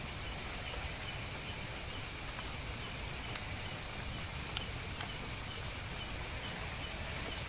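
Crickets and other night insects chirping in a steady, high-pitched drone, over a low background rumble.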